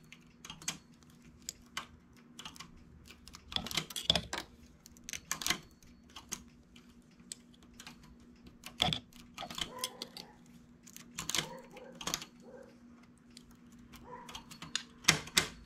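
Irregular light clicks and taps of the knitting machine's metal needles and a hand transfer tool as stitches are lifted off and crossed by hand to form cables, over a faint steady hum.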